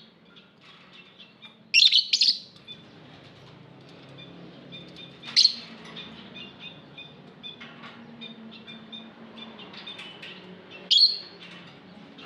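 Lovebirds chirping: a run of soft twittering, broken by three loud, shrill chirp bursts about two seconds in, at about five and a half seconds, and near the end.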